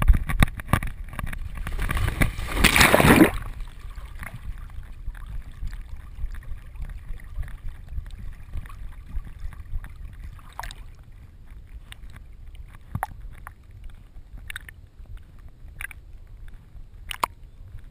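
A retriever splashing as it runs into a pond, with one loud splash about three seconds in as it plunges in. After that comes a steady low sloshing and lapping of water as the dog swims, heard muffled through the camera housing on its back, with a few sharp ticks.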